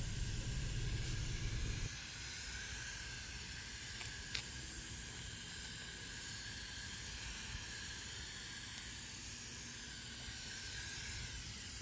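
Garden hose spray nozzle on its mist setting, giving a steady hiss of fine water spray as it wets dry-poured concrete so the dry mix can cure.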